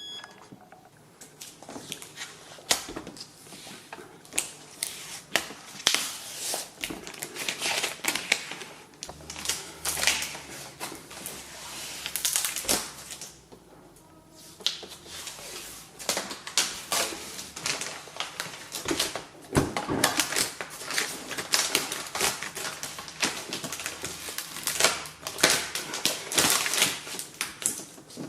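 Irregular clicks, taps and rattles of hand work: parts and tools being handled and fitted while installing a built-in dishwasher, with a short pause about halfway through.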